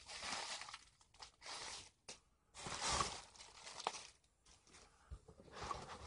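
Crinkly plastic packing material being handled and rustled in several irregular bursts.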